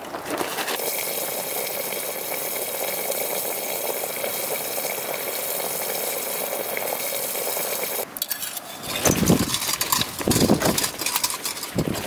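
Steady hiss of a camping stove's flame under a lidded cooking pot. From about eight seconds in it gives way to a spoon clinking and scraping in a metal bowl of stew.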